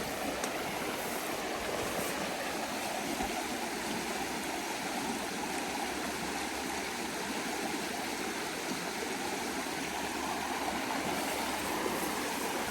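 Stream water rushing and gurgling in a steady, even flow.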